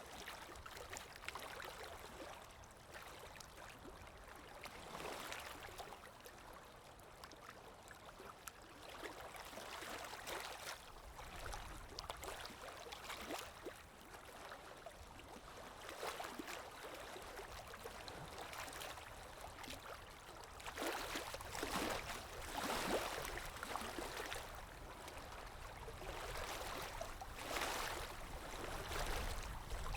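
Calm waves lapping gently, each wash swelling and fading every few seconds, with a stronger run of washes about two-thirds of the way in.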